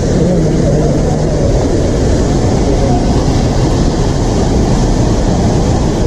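Waterfall rushing: a loud, steady, unbroken wash of falling water.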